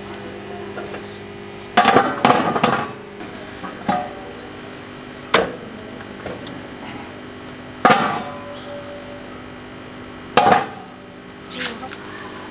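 Naan dough being slapped by hand onto the inner wall of a steel drum tandoor, with knocks on the drum. There is a cluster of three sharp slaps about two seconds in, then one every two and a half seconds or so, over a steady low hum.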